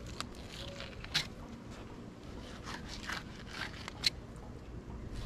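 Flex fillet knife slicing and scraping through raw tuna flesh and skin on a cutting board: irregular crisp scrapes, with two sharp clicks, about a second in and near four seconds.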